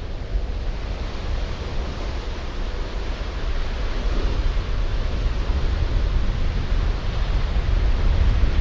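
Wind buffeting an outdoor camera microphone: a steady rushing noise with a heavy, fluctuating low rumble that grows a little louder about halfway through.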